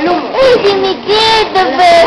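High-pitched voices talking in a sing-song way, two of them overlapping at times.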